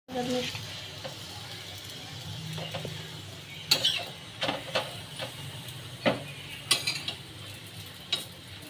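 Parathas frying in oil on a flat griddle pan (tawa), a steady sizzle. A metal spatula scrapes and taps against the pan several times as the breads are flipped and pressed.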